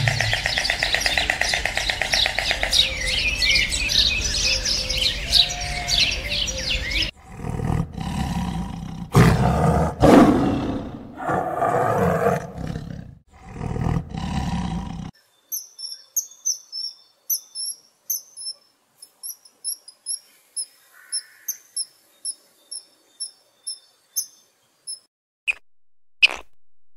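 A run of animal calls: several seconds of dense chirping and calling, then loud calls that sweep up and down for several seconds, then a small bird's short, high chirps repeating about two or three a second, with a couple of clicks near the end.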